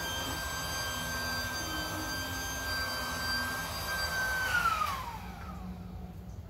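Small electric air pump inflating an inflatable kayak, running with a steady high whine, then switched off about four and a half seconds in, its pitch falling as the motor spins down.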